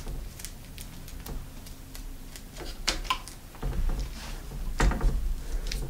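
Scissors snipping through handlebar tape, then scattered small clicks and taps as the cut end of the tape is handled and pressed onto the bar, with a few dull knocks in the second half.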